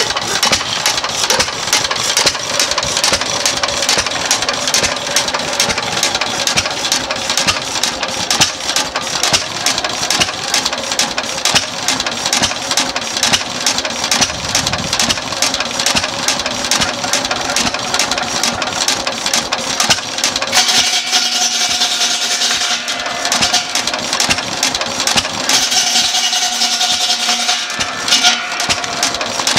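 Nelson Brothers 5 hp governed single-cylinder stationary engine running steadily under its governor, driving a belted buzz saw, with a rapid regular firing beat. Twice in the last ten seconds a higher hiss and a steady whine rise over it.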